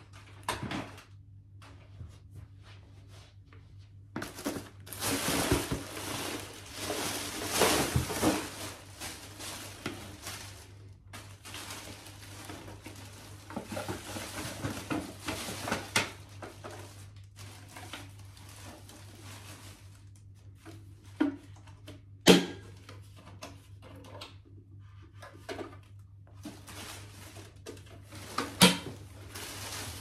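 Handling noises: irregular rustling and clattering, busiest in the first half, with two sharp knocks, one about two-thirds of the way through and one near the end, over a faint steady low hum.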